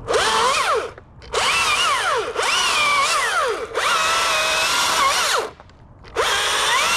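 Small power tool motor run in five bursts, its pitch rising and falling within each burst, with short pauses between.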